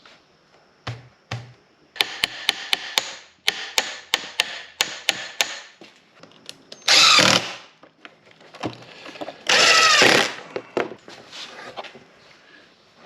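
A run of sharp clicks, about three a second, for a few seconds, then two short loud bursts of a power drill running, the second with its pitch sweeping. These are power tools at work on wooden cabinet doors that are being put together with glue and pocket screws.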